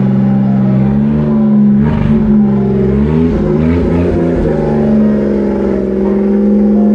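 Suzuki Every van's engine running through its exhaust at a steady idle, with the revs rising and falling a few times in the middle.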